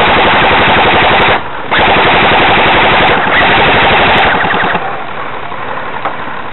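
Airsoft guns firing on full auto in two long rapid bursts, with a short break about a second and a half in; the firing dies down about four to five seconds in.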